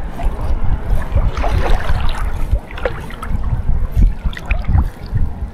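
Wind buffeting the microphone in uneven gusts over water lapping at sea.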